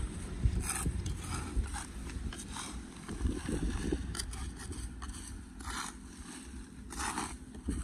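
Dry leaves and litter being scooped out of a concrete street gutter into a black plastic bin bag: the bag rustles and the debris crunches and scrapes in short bursts every second or so, over a low steady rumble.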